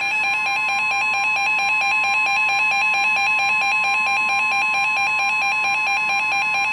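Emergency Alert System attention signal: a steady two-tone electronic alarm, held without a break, announcing that an emergency alert message follows.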